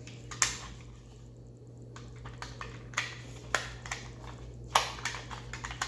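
Scattered clicks and light knocks of a toy playset and its packaging being handled and set down, a few sharper clicks standing out, over a steady low hum.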